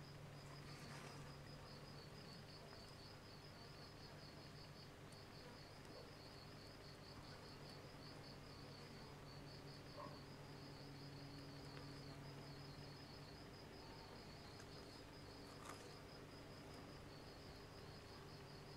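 Faint insect chirping, high-pitched trains of rapid pulses repeating in groups with short gaps, over a low steady hum.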